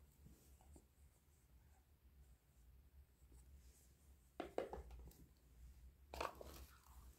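Light plastic clacks as a small toy cooking pot with a lid is handled and set down on a plastic toy stove: two brief clusters of knocks, about four and a half and six seconds in, otherwise near silence.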